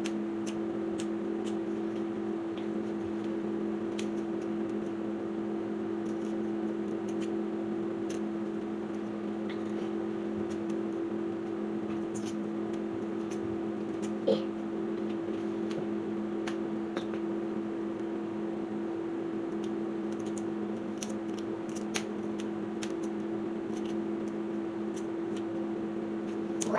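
Faint clicks and crackles of eggshell being picked and peeled off a hard-boiled egg by hand, over a steady hum.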